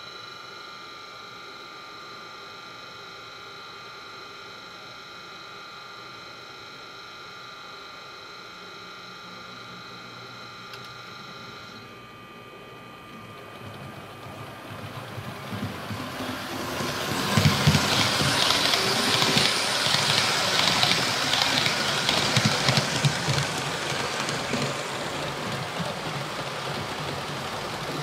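HO scale model train layout: a steady multi-tone electric whine stops about twelve seconds in. A noisy, engine-like running sound with low pulsing then builds over a few seconds and stays loud.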